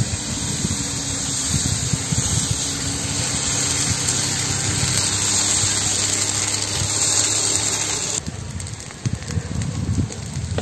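Dosa batter sizzling with a loud, steady hiss as it is poured and spread in circles on a hot iron tawa. The hiss cuts off suddenly about eight seconds in, leaving quieter sizzling with scattered crackles.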